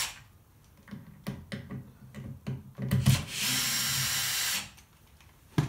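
Cordless drill-driver driving a self-tapping square-drive Kreg screw through the back of an oak drawer box into the drawer front, the motor running steadily for about a second and a half past the middle. Before it, a few light clicks and knocks; a sharp knock near the end.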